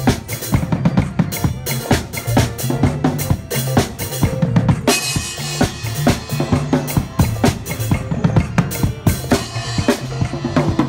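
Acoustic drum kit played in a busy African praise groove: rapid snare and rimshot hits, bass drum and cymbals, with a crash ringing out about five seconds in. A backing track with a bass line plays underneath.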